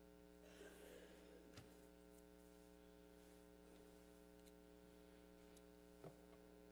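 Near silence: a faint steady electrical hum, with a soft rustle near the start and a couple of faint clicks.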